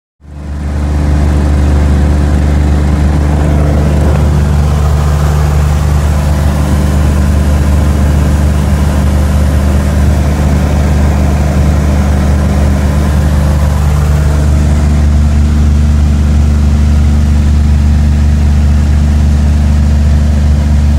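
Cessna 175's piston engine and propeller running steadily at a constant pitch, fading in over the first second.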